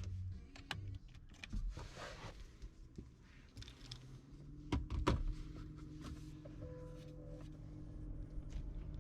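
Scattered clicks and knocks of a car's interior fittings being handled, with a short hiss about two seconds in. A few sharper knocks come about five seconds in, and at the same time a steady low electric hum starts and runs on.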